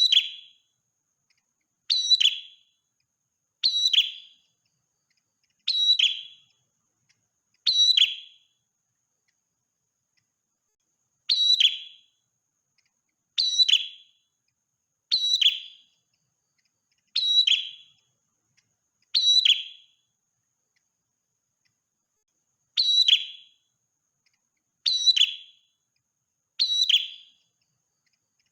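Prinia (prenjak merah) calling: a short, sharp, high call given thirteen times, about every two seconds, with two longer pauses. The calls are identical and there is silence between them.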